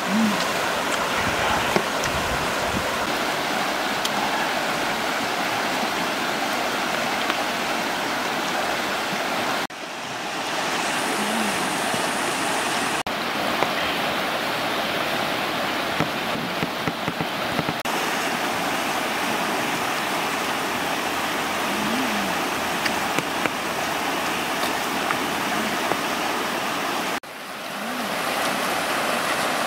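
Fast-flowing river rushing steadily, a constant broad rush of water. It drops out briefly twice and swells back.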